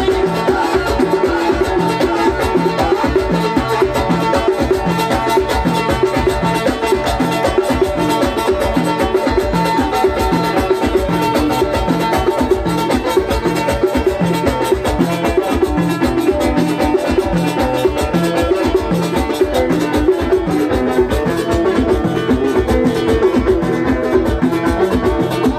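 Tagroupit, Amazigh Souss band music, playing with a steady, even drum beat under pitched instruments.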